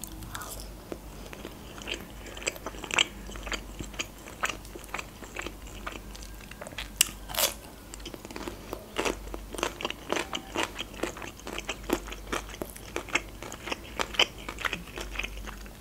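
Close-miked eating: a bite into a breaded fried chicken cutlet, then steady chewing with many small crisp crunches and a few louder ones, from the fried crust and raw green pepper.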